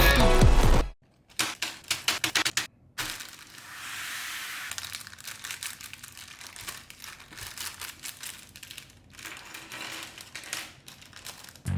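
Minifigure packaging being handled and opened by hand: a run of sharp clicks, then rustling and crinkling with scattered small clicks.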